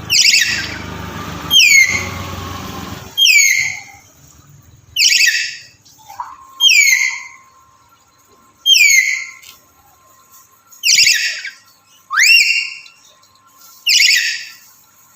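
Black-capped lory giving a series of loud, shrill calls, each a short whistle falling in pitch, about nine in all at one every one to two seconds; one call near the end rises instead of falling.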